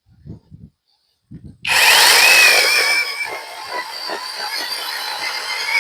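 Battery-powered chainsaw starting up suddenly about a second and a half in. Its electric motor gives a steady high whine as the chain cuts into a mud-caked log, and the sound eases a little as it settles into the cut.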